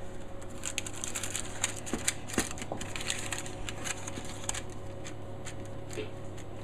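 Hands pinching and pressing the edges of raw puff pastry to seal it, with irregular small clicks and rustles over a steady low hum.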